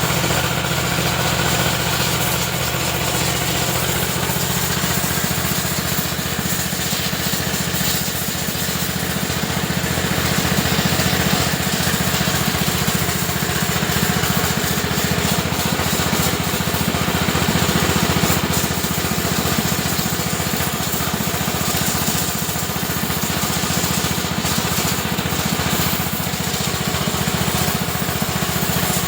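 Motorbike-wash pressure washer running steadily: a constant motor-driven pump drone with a hiss of high-pressure water spray over it.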